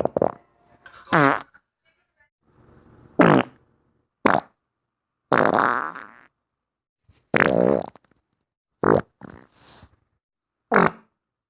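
A run of loud farts, about nine separate ones of different lengths, each a short pitched blast with gaps of silence between. The longest, a little past the middle, lasts about a second.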